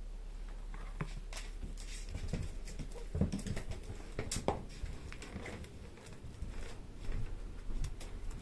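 Cats moving and playing about a small room: scattered soft thumps, taps and pattering, with a couple of heavier bumps around the middle.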